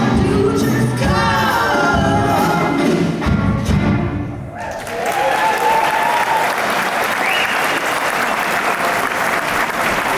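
A group of women singers ends a song in harmony over instrumental backing. About four and a half seconds in, the music stops and the audience applauds, with a few cheers.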